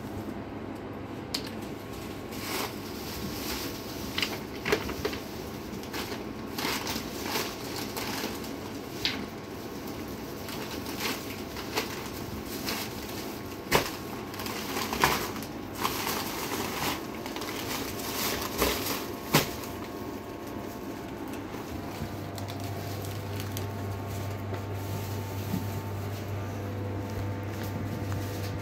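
Plastic bag crinkling, with small clicks and knocks, as goods are handled and packed by hand. A steady low hum comes in about two-thirds of the way through.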